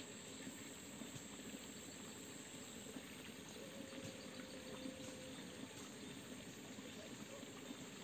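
Faint, steady trickle of a small stream flowing, with an insect's thin high whine that stops about three seconds in.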